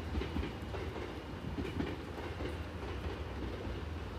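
A train running on the rails: a steady low rumble with a few light clicks from the wheels.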